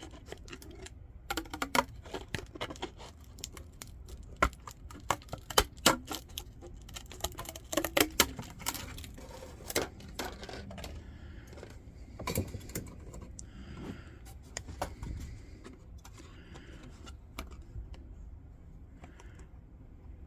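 Scissors cutting a sheet of mica: a run of sharp, crackly snips and cracks, densest in the first half and thinning out in the second.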